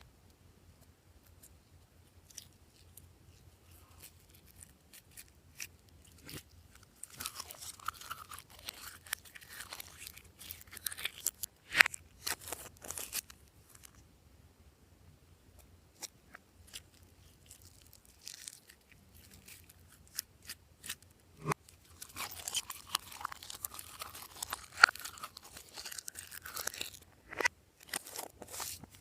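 Glossy slime being worked by hand with add-ins mixed through it, giving wet crackling, popping clicks and squelches. It comes in two busy stretches of dense crackle with scattered single pops between them.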